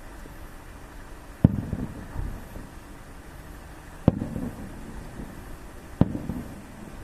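Three aerial firework shells bursting, each a sharp bang followed by a low rumbling echo, the second about two and a half seconds after the first and the third two seconds later. A steady low rumble underlies them.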